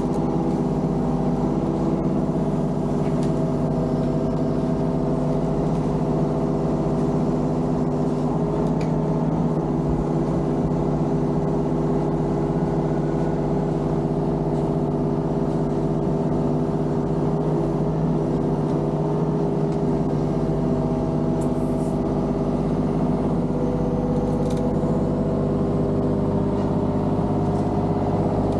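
Diesel engine of construction equipment running at a steady speed, a constant, even hum, with a few faint clicks over it.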